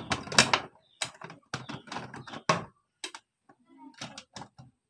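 Hand screwdriver driving a screw into a plastic switch board cover plate: a string of irregular sharp clicks and ticks, several a second.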